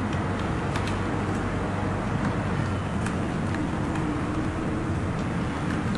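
Steady background rumble and hiss, with a few faint small clicks from slack ukulele strings being pulled off at the headstock and tuning pegs.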